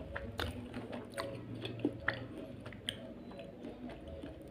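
A person chewing and biting crispy spicy Indomie (kriuk) instant noodles, with irregular crisp crunches.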